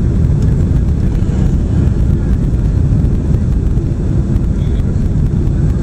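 Steady low roar of a Boeing 767 airliner heard from inside the passenger cabin during landing.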